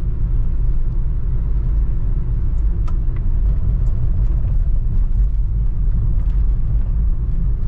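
Steady low rumble of a 2008 Nissan Grand Livina 1.8 manual being driven: engine and road noise of the car on the move.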